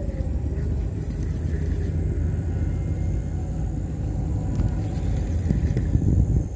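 Steady low rumble with a faint, thin, high steady tone above it.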